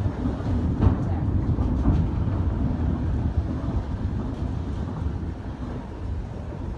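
A ship's slipway cradle rolling down the launching rails under the vessel's weight: a continuous low rumble with scattered knocks and clanks, easing slightly near the end.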